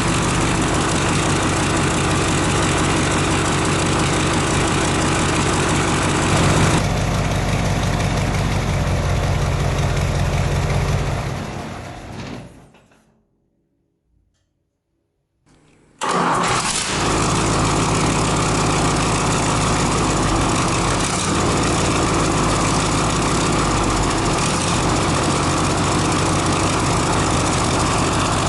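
Mercedes-Benz OM442 V8 diesel engine running steadily. About eleven seconds in it winds down and falls silent. After two or three seconds of silence the engine sound comes back suddenly at full level and runs on steadily.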